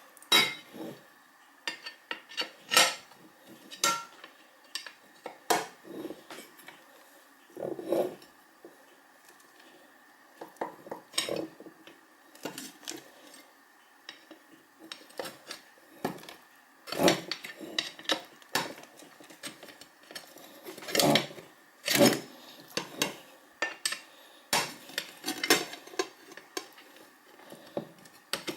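Metal rotisserie rack parts clinking and clattering as hens are fixed onto them: irregular sharp knocks and clicks, some in quick clusters, with several louder clanks.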